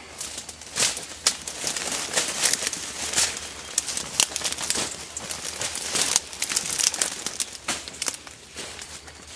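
Leaves and brush rustling and crackling against packs, webbing and the camera as people push through dense undergrowth on foot, a quick, irregular run of rustles and snaps.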